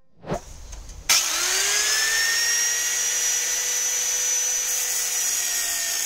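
Angle grinder starting about a second in, its whine rising as the motor comes up to speed and then running steadily while it grinds a brake light bracket.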